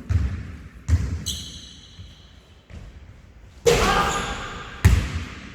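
Basketball being dribbled during one-on-one play: about five uneven bounces, each a sharp thud that rings out in the gym hall. Short high squeaks of sneakers on the court come in about a second in and again near the loudest bounce.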